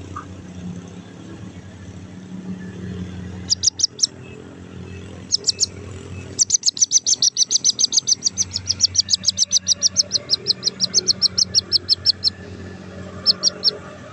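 A quail (the 'puyuh bugis') calling with short, high-pitched chirps. It gives two brief runs first, then a long rapid train of about six or seven notes a second for some six seconds, and a final run of three near the end.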